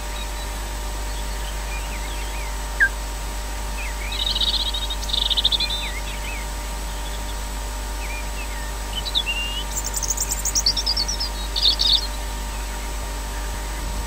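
A small songbird singing: a single sharp call about three seconds in, then short trilled phrases around four to six seconds, and a longer, higher-pitched run of phrases from about nine to twelve seconds. Under it runs the steady hiss and hum of the nest-camera microphone.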